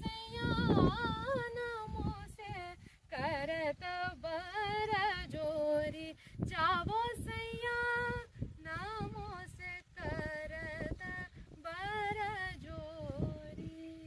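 A woman's voice singing unaccompanied, a melody sung in short phrases with wavering held notes and brief pauses between them.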